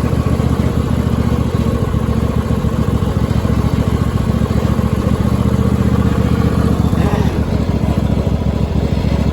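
Cub Cadet lawn tractor's swapped-in 26 hp Briggs & Stratton V-twin engine running steadily while the tractor drives, a fast even rumble of firing pulses. The owner says the motor doesn't run great.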